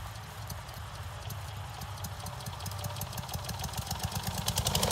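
Lawnmower engine starting and slowly spinning up, an even beat of strokes that speeds up and grows louder. The start is slow because of the extra inertia of the heavy blade, which carries welded cups loaded with a phone and rocks as a centrifuge rotor.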